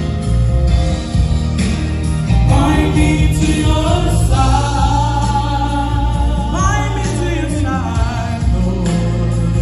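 Gospel song sung live through a PA system, a male voice on a microphone carrying the melody over accompaniment with a deep, steady bass. The voice slides up in pitch at a few points about two-thirds of the way in.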